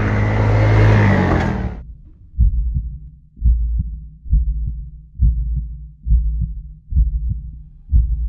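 A heartbeat sound effect: slow, deep thumps about once a second. They begin just after a loud droning sound cuts off suddenly, about two seconds in.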